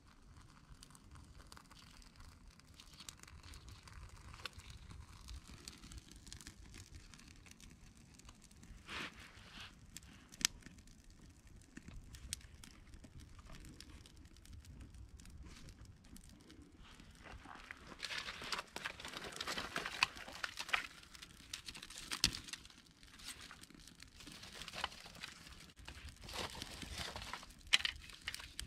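Small kindling fire crackling and popping as it catches, with sharp snaps here and there. The crackle grows busier about two-thirds of the way in.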